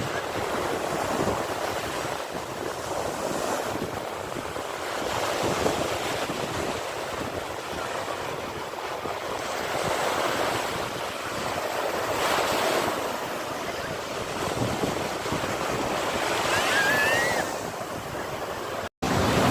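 Sea waves washing on a shore: a continuous surf rush that swells and eases every few seconds. The sound drops out for a split second near the end.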